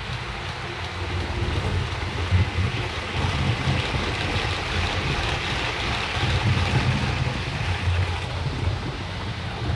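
Model train running on a layout's track: a steady, uneven rumble of wheels and motor, with a hiss that swells in the middle and eases toward the end.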